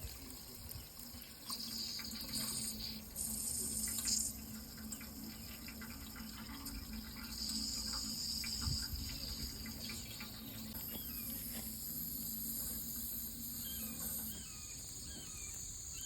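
Running water with insects trilling in steady high-pitched bands that start and stop, over a low steady hum. A few short chirps come near the end.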